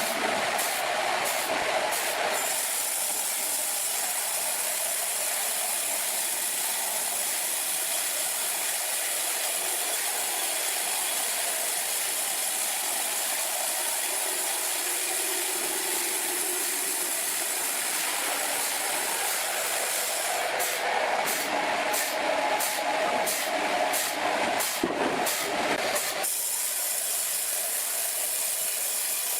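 Sawmill machinery running: a steady rushing mechanical noise, with a fast regular flutter in its hiss near the start and again about 20 to 26 seconds in.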